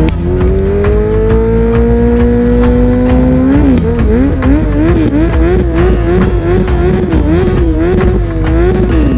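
Suzuki Hayabusa's inline-four engine held at high revs during a burnout, the rear tyre spinning on the asphalt. The revs climb slowly at first, then from about three and a half seconds in rise and fall over and over, and drop away right at the end.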